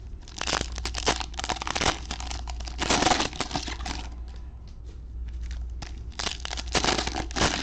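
Foil wrapper of a trading-card pack torn open and crinkled by gloved hands, in three bursts of rustling: about half a second in, around three seconds, and again near the end.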